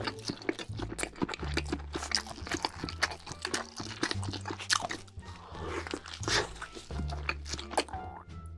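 Close-miked mukbang eating: crunchy bites into a cheese-filled burger and chewing, a dense run of crackling crunches, over background music with a low bass line.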